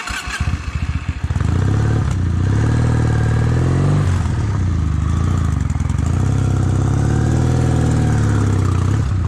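Kawasaki W800's air-cooled parallel-twin engine accelerating, its pitch climbing, dropping at a gear change about four seconds in, then climbing again.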